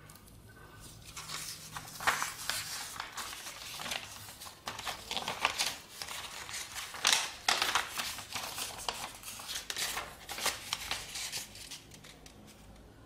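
A sheet of white paper rustling and crinkling as it is handled and folded by hand, in uneven bursts with a few sharper crackles.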